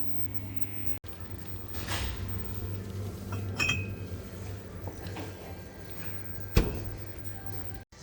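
A single short clink of glass or crockery, with a sharp click a few seconds later, over a steady low room hum.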